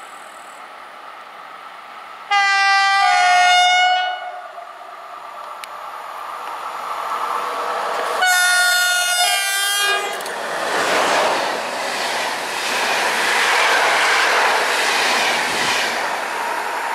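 Two blasts from electric trains' air horns, about six seconds apart, each lasting under two seconds. The first drops in pitch partway through. One comes from an EN78A Impuls II multiple unit and one from an EP09 locomotive giving the Rp1 warning signal. After the second blast a train runs past with a loud rumble and wheel clatter.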